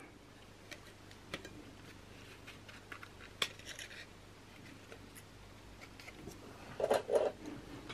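Quiet handling of a small black plastic clip and green cardstock: a few light clicks and some paper rustle as the clip is clamped onto a freshly glued box-lid flap to hold it while the glue sets. Two short soft sounds come near the end.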